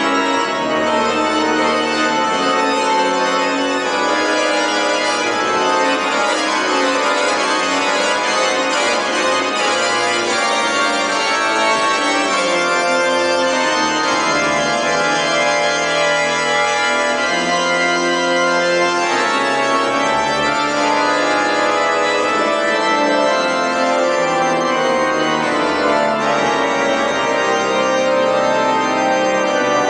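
Two-manual organ with pedalboard playing a piece in full sustained chords, with long held bass notes underneath and the harmony moving every second or so.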